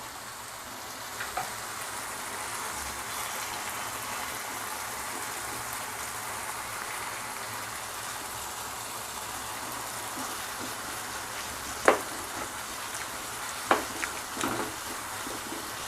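Prawn roast sizzling steadily in coconut oil in the pan, the oil separating from the masala as the dish nears done. A sharp knock about twelve seconds in and a few lighter ones shortly after.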